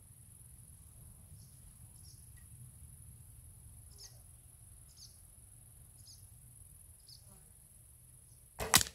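Insects chirping steadily in a high hiss, with short high chirps about once a second. Near the end a sudden loud double knock: an arrow from the recurve bow striking close by.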